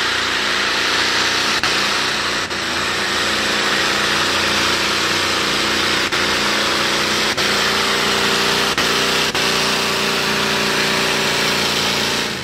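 Supercharged engine of a modified-class pulling tractor running flat out under load as it drags the weight-transfer sled, a loud, steady note with a few brief stutters. It falls off right at the end as the pull finishes.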